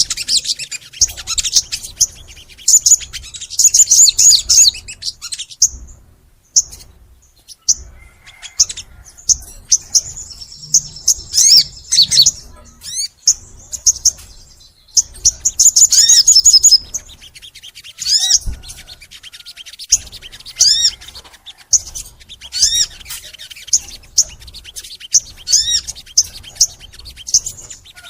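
Sogon bird singing in full song: rapid runs of high, chirping, arcing notes in repeated bursts, with a few short pauses between phrases.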